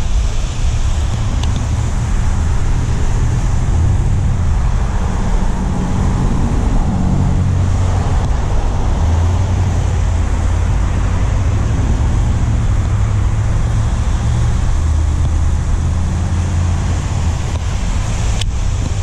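Steady rush of water pouring over a small concrete pond spillway, mixed with a heavy, uneven low rumble of wind buffeting the microphone.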